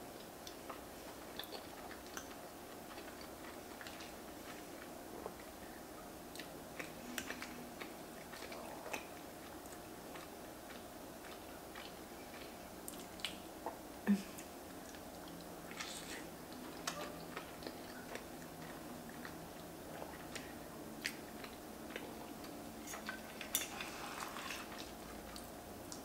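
Close-miked chewing and mouth sounds of someone eating soft, cheesy stuffed pasta carbonara, faint over a steady low hum. Near the end a metal fork clicks and scrapes against the pan while picking up more pasta.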